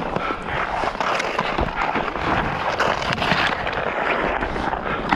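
Ice hockey skate blades scraping and carving across outdoor pond ice, with sharp clicks of hockey sticks hitting the puck and each other.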